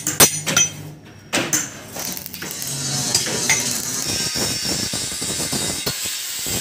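Steel being worked by hand: a few sharp metal clanks of a steel flat bar in the first second or so, then a steady hiss of metal scraping with scattered small ticks and clinks.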